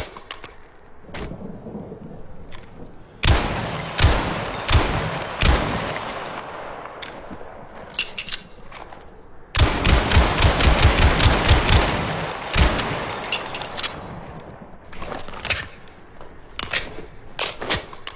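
1911 pistol gunshots: four single shots with long echoing tails about a second apart, then a rapid string of shots for about three seconds, with sharp clicks near the start and end.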